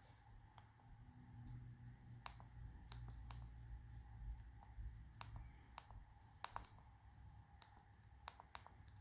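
Faint, irregular clicks from the keypad buttons of an LG AX565 cell phone being pressed, a dozen or so spread over several seconds, over a faint low hum.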